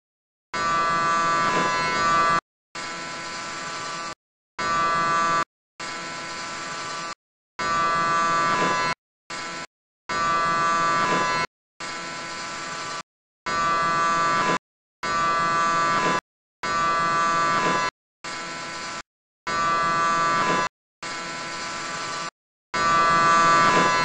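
Electric hair clippers buzzing in about fifteen separate runs of one to two seconds each, some louder and some softer. Each run stops abruptly, with a short silence before the next.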